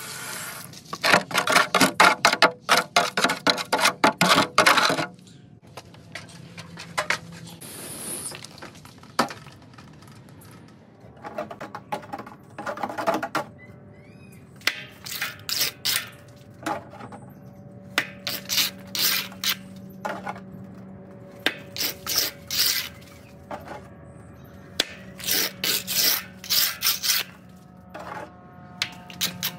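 A hand tool scraping and rubbing on stucco: a fast, continuous run of strokes for the first few seconds, then short clusters of strokes every few seconds.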